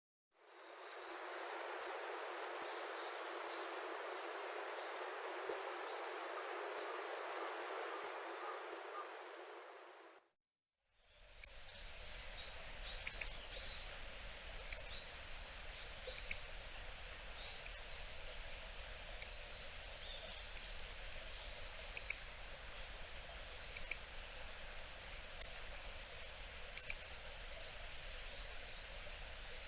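Hawfinch giving short, sharp, high call notes: an irregular run of about a dozen, several in quick succession, then after a brief break a steadier series repeated about every second and a half, over a soft background hiss.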